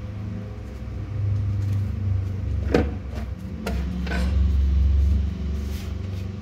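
A steady low rumble with a few light clicks and knocks in the middle, as parathas are handled and laid into an insulated casserole.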